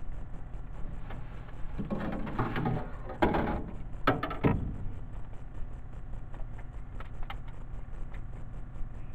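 A boat motor humming steadily, with a burst of clattering and knocks between about two and four and a half seconds in as a fishing rod is handled and lifted from its rod holder.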